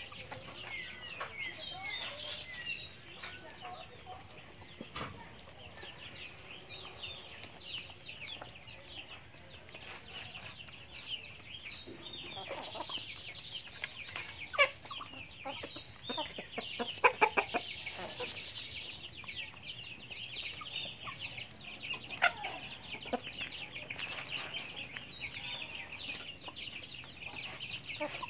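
Chickens clucking softly while they peck at feed, over a steady chatter of high chirps. A little past halfway comes a quick run of sharp taps.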